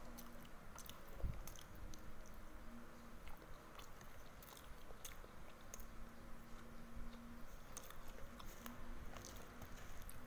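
Close mouth sounds of a person biting and chewing satay pulled off bamboo skewers, with small wet clicks scattered throughout. A single dull thump about a second in is the loudest sound.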